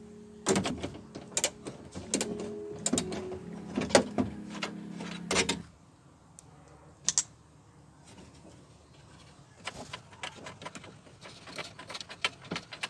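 Background music with clicks for the first half. After it stops, sparse clicks and a light clinking rattle of small metal and plastic car-door parts being handled.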